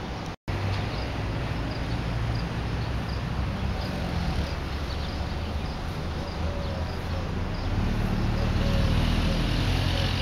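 Steady low rumble of city traffic with birds chirping over it; the sound cuts out for an instant just after the start.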